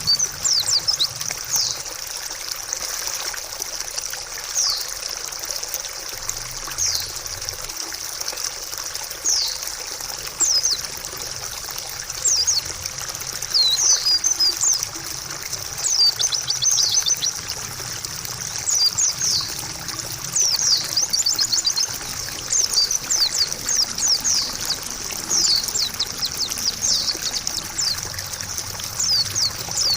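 White-eye (pleci) twittering: quick runs of very high, thin, downslurred chirps that come more densely in the second half, over a steady trickle of running water.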